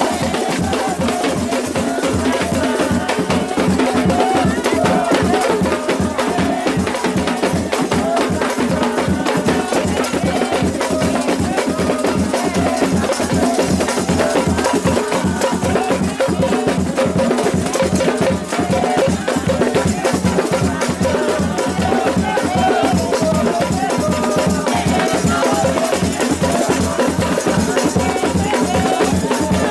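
Samba de roda: pandeiros played in a steady, even beat, their metal jingles rattling, with hand clapping and group singing over it.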